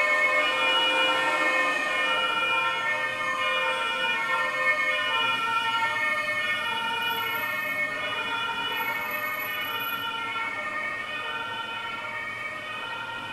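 German police car two-tone siren (Martinshorn) sounding, alternating between two pitches, and slowly growing fainter.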